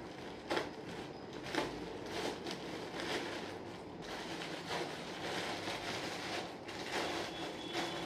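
Plastic courier mailer being slit with a box cutter and torn open, the plastic crinkling and rustling in irregular scrapes as it is handled, with two sharp clicks in the first two seconds.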